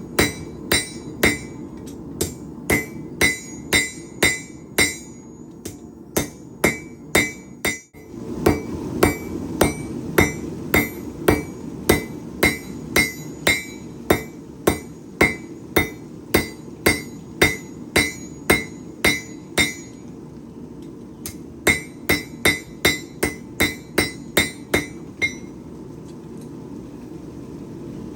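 Forging hammer striking a knife blank on an anvil, about two blows a second, each with a short metallic ring. The blows come in runs broken by brief pauses, over a steady background rush.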